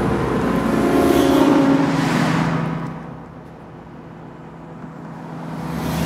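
A car passing by on the road, its noise swelling and then fading about three seconds in, with another building near the end. Steady drone tones from a keyboard-played vocoder are held underneath.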